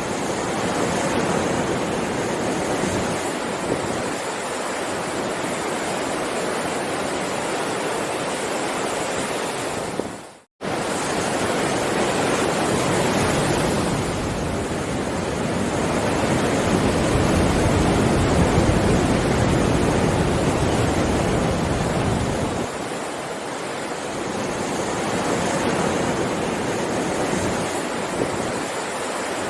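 Heavy sea waves surging and washing in a continuous rush of surf, swelling and easing slowly over several seconds. The sound cuts out abruptly for a fraction of a second about ten seconds in.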